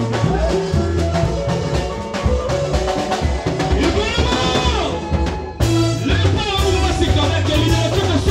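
Live band playing fast dance music, with drum kit, congas and electric guitar over a steady bass. The music drops out for a moment about five and a half seconds in, then comes straight back.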